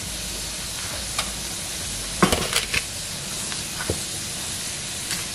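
Sliced sausage and green bell pepper sizzling steadily in a cast iron skillet. A few light clicks come about two seconds in, and another near four seconds.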